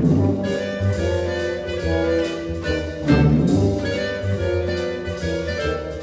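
Orchestral background music with brass.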